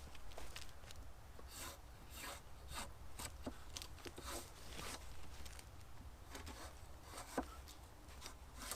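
Bark being stripped from a freshly cut pole with a draw knife: faint, irregular rasping strokes, with one sharp click near the end.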